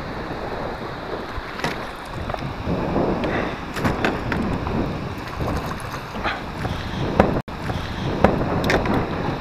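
Wind buffeting the microphone over choppy water, with irregular splashing as a hooked sauger thrashes at the surface and is scooped into a landing net, and a few sharp knocks near the end.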